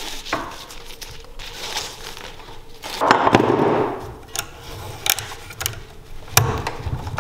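Ratchet strap being tightened: the webbing rasps as it is pulled through the buckle about three seconds in, then the ratchet handle is worked, giving a series of sharp metal clicks.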